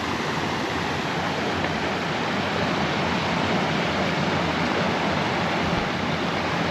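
A brook running over rocks at a stream crossing, a steady rush of water.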